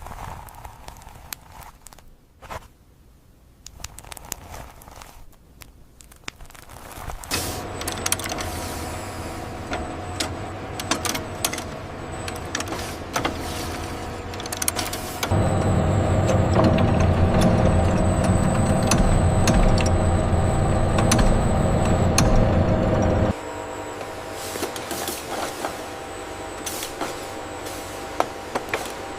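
AI-generated factory machinery sound: scattered clicks and clatter, joined about a quarter of the way in by a steady machine hum. The hum grows louder about halfway through and drops back suddenly about three-quarters of the way in.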